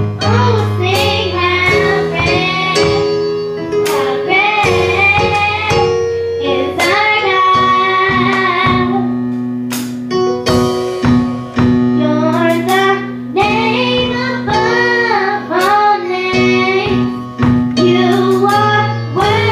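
Church choir singing a worship song, with instrumental accompaniment holding long low notes under the voices.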